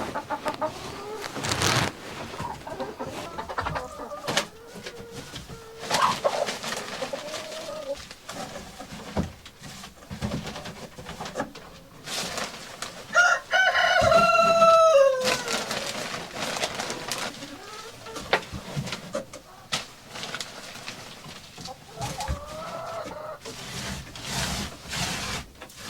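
Hens clucking in a chicken coop, with one rooster crow about halfway through, a long call that drops in pitch at the end. Rustling and knocking from fresh pine shavings being spread in the hen boxes.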